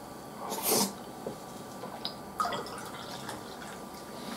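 A short slurp from a spoonful of food about half a second in, then beer poured from an aluminium can into a glass, a faint liquid trickle.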